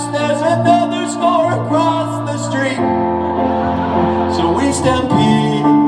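Music: a man singing a held, wavering line over piano accompaniment. The voice drops away about three seconds in while the sustained piano chords carry on.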